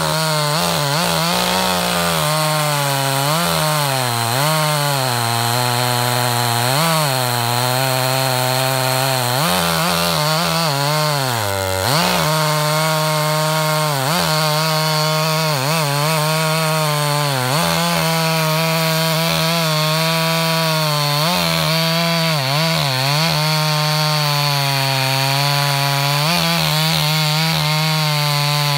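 Husqvarna 254XP two-stroke chainsaw, freshly overhauled, running at full throttle through a 25-inch sugar maple log with an 18-inch bar and .325 chain. The engine pitch keeps dipping as the chain loads in the cut and climbing back, with one deep bog about twelve seconds in.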